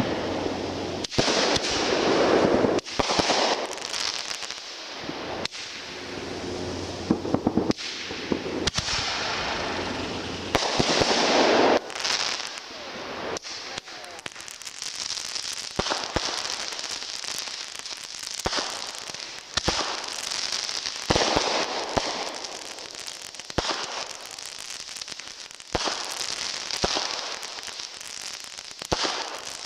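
Consumer fireworks going off in quick succession: sharp bangs and hissing bursts, then from about twelve seconds in a long stretch of dense crackling.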